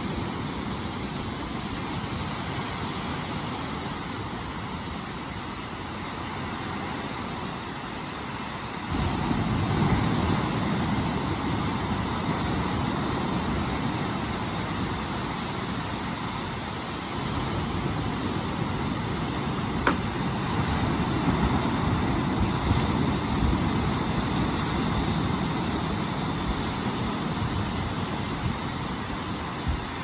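Waves washing onto a sandy beach, with wind rumbling on the microphone. The low rumble grows louder suddenly about nine seconds in, and a single sharp click comes about two-thirds of the way through.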